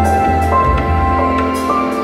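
Calm ambient background music: long held notes over a low bass.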